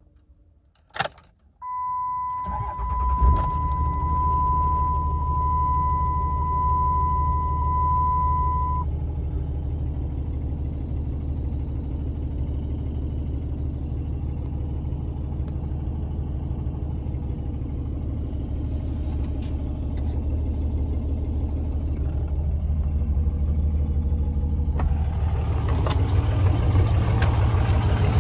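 A click, then a steady electronic warning tone from the cab for about seven seconds. About two and a half seconds in, the 2006 Dodge Ram 2500's 5.9-litre Cummins inline-six turbo diesel cranks briefly, catches and settles into a steady idle, growing a little louder near the end.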